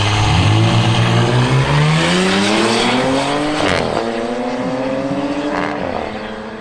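Car engine under hard acceleration, its pitch climbing steadily and then dropping at an upshift about four seconds in, climbing again and dropping at a second upshift near the end.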